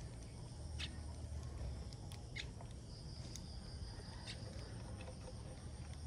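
Sparrows giving short, scattered high chirps, about half a dozen in a few seconds, over a steady faint high hiss.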